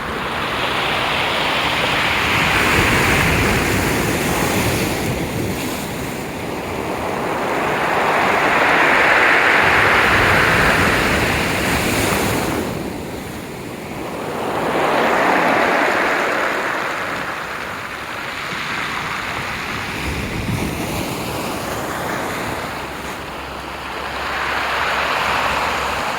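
Aegean Sea waves washing ashore, rising and falling in slow surges about every six seconds, with some wind on the microphone.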